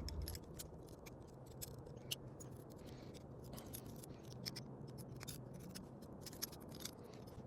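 Faint, scattered clicks and light scraping of a folding multitool slingshot being unfolded by hand, its parts pivoting open.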